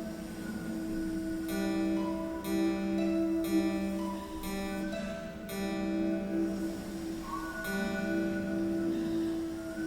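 Live contemporary chamber music: a steady low drone with a series of short held chords laid over it, starting about a second and a half in, coming about once a second, and thinning out near the end.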